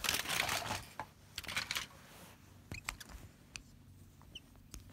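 Rustling scuffs of plastic toys being pushed and handled on a fabric bedspread. These are followed by several light clicks and taps as the toys knock together.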